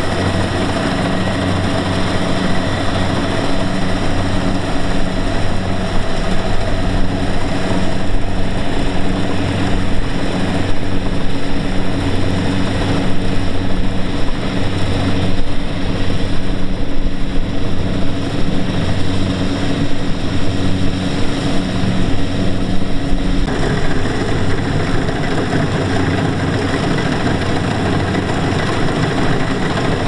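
Kubota DC-70Plus combine harvester's diesel engine and threshing machinery running steadily while it harvests rice. The sound changes about two-thirds of the way through.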